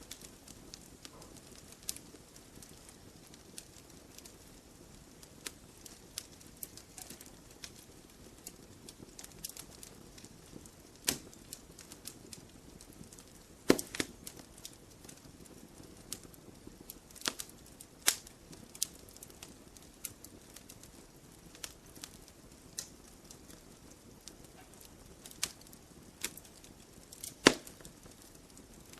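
Logs burning in a campfire, crackling with irregular sharp snaps and pops over a low, steady hiss. A handful of pops stand out louder, the loudest near the middle and near the end.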